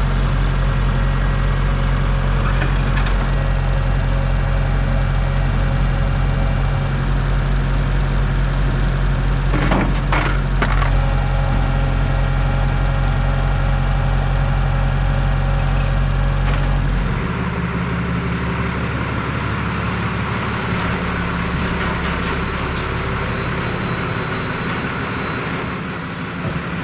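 Heavy diesel vehicle engine running steadily; about two thirds of the way through the low engine note changes and drops in level.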